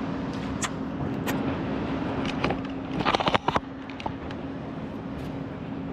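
A steady, engine-like hum under outdoor background noise. About three seconds in comes a quick run of knocks and clicks from the camera being handled.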